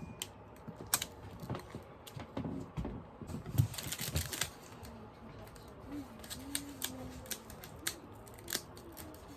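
Snack packaging being handled and opened: plastic wrapper crinkling and tearing with many small sharp clicks and taps, densest about three and a half to four and a half seconds in.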